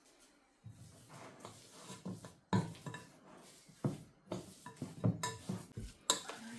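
Dishes and cutlery handled in a kitchen: a run of clinks and clatter that starts about half a second in, with several sharper knocks standing out.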